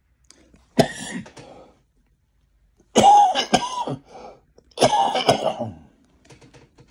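An elderly man coughing hard in three separate bouts, about a second in, three seconds in and five seconds in, each starting suddenly.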